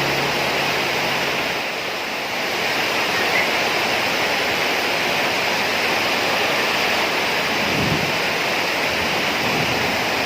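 Steady rain falling, heard as an even hiss that does not let up. Held low tones of background music fade out in the first couple of seconds.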